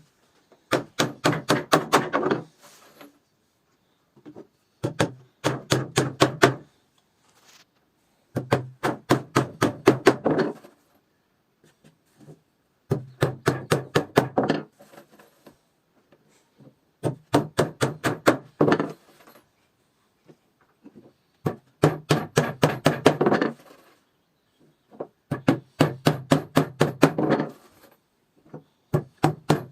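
Repeated hammering on wood: bursts of about ten quick blows lasting under two seconds, a new burst every four seconds or so, each blow a sharp knock.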